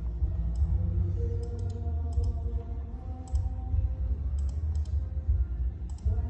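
Clicking at a laptop while copying and pasting text: about a dozen sharp clicks, many in quick pairs, over a steady low rumble.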